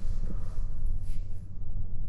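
Wind buffeting the microphone: a steady low rumble, with a faint hiss and a brief rustle about a second in.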